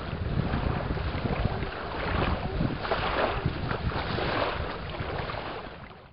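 Wind buffeting the microphone over water sloshing and splashing against a small coroplast boat hull as it is propelled along.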